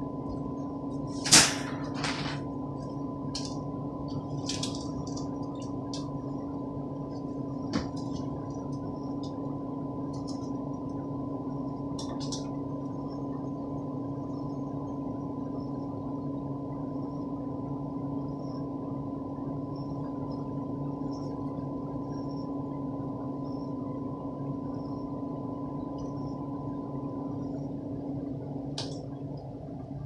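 Steady low room hum with a faint high steady tone. A sharp knock comes about a second and a half in, and a few small clicks follow.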